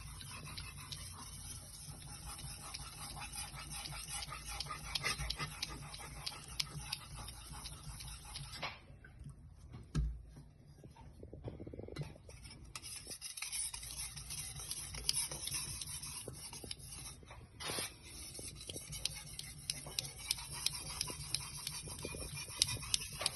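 A Chinese cleaver's steel blade stroked back and forth on a whetstone for the final sharpening passes: a steady rasping with many small scrapes. It breaks off briefly about nine seconds in, with a low knock, then resumes.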